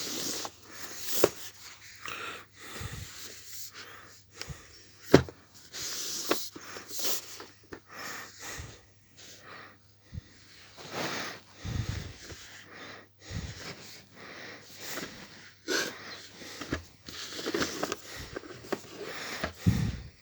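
Irregular rustling and sharp clicks and taps of a DVD box set's packaging being handled, over a faint steady low hum.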